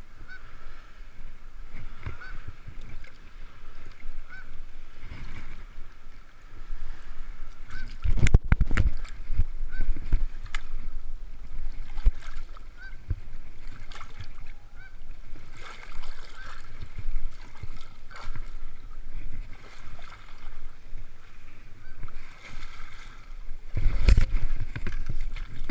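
Water sloshing and splashing around a person's legs as they wade through shallow lake water hauling a seine net. There are heavier splashes and bumps about eight seconds in and again near the end. Short, faint calls repeat every second or two in the background.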